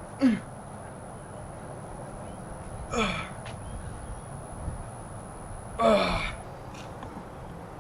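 A man's voice giving three short gasps of effort, each falling in pitch, about three seconds apart, as he strains through repetitions of a makeshift exercise.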